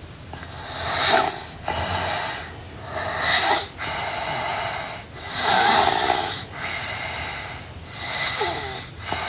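A sleeping girl snoring in a steady rhythm, about one breath every two seconds. Each cycle is a louder, swelling rasp followed by a steadier, quieter breath, about four times in all.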